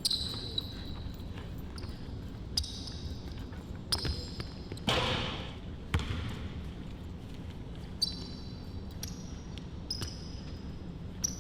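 Basketball game on an indoor court: a ball dribbled with low thumps and sneakers squeaking in short high squeals several times. About five seconds in there is a louder, short burst of noise.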